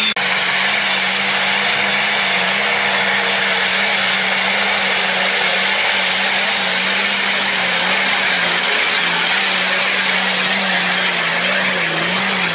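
Nissan Patrol 4x4's engine held at high revs under load as it climbs loose rock, a steady, slightly wavering drone under a loud hiss.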